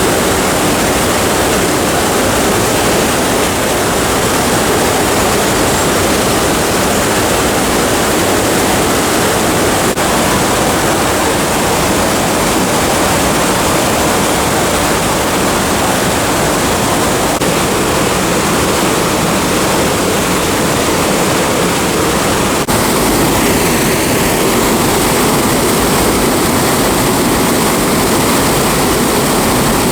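Waterfall, a loud, steady rush of falling water. About three-quarters of the way through the sound changes abruptly and turns deeper.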